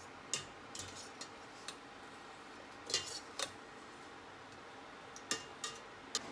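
A scattering of light clicks and clinks from kitchen utensils and dishware, about nine in all, the sharpest about three seconds in, over a faint steady hum.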